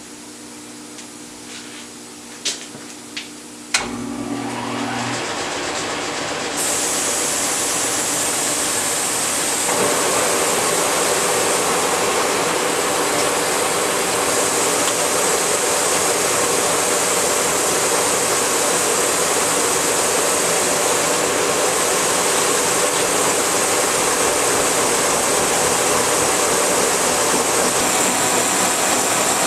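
A few sharp clicks, then a Kearney & Trecker milling machine starts up about four seconds in and runs steadily. Its noise grows louder in two steps, with a high hiss joining, as the cutter takes a facing cut across the steel top of a railroad rail.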